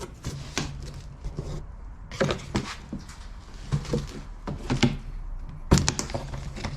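Irregular knocks, clunks and rattles of parts being handled and set down, the sharpest a little before the end, over a low steady hum.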